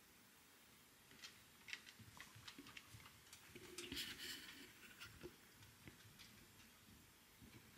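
Faint, irregular clicking and tapping of a long-haired dachshund's claws on a wooden floor as it walks, starting about a second in and thinning out near the end.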